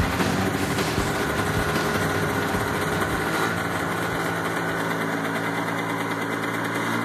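Vintage Kawasaki Invader snowmobile's two-stroke engine running at idle, somewhat uneven at first and settling into a steadier note about three and a half seconds in.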